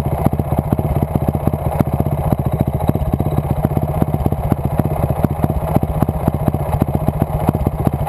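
Dirt bike engine idling steadily close to the microphone, an even, unchanging run of rapid firing pulses with no revving.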